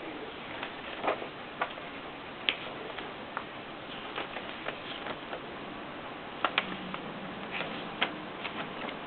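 Consul typewriter being typed on: single keystrokes striking at irregular intervals, some close pairs, over a steady background hiss.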